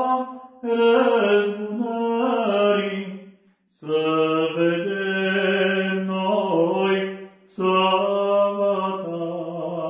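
A man's voice singing a slow, unaccompanied Romanian Orthodox church song: three long phrases of held, steady notes with brief breaths between them.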